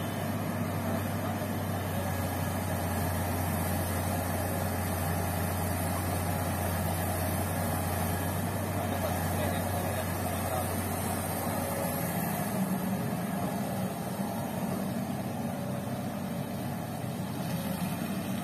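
Diesel engines of a loaded Canter dump truck and a Komatsu PC200 excavator running under load as the excavator pushes the leaning truck through sand: a steady low drone whose tone changes and eases slightly about 14 seconds in.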